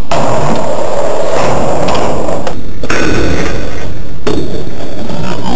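Skateboard wheels rolling on concrete with knocks and thuds from the board, very loud on the microphone.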